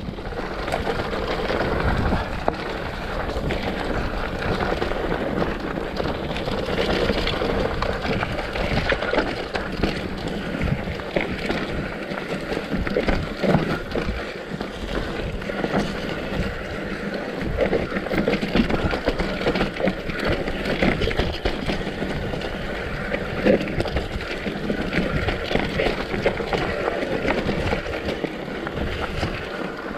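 Mountain bike rolling down a rough dirt trail: steady tyre noise with many small knocks and rattles as it runs over the ground, and wind noise on the microphone.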